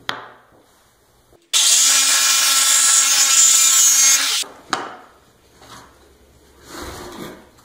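Jigsaw cutting through a wooden board for about three seconds, starting and stopping abruptly, with a steady motor tone under the sawing. Afterwards there are a few short knocks as the cut wooden pieces are handled on the workbench.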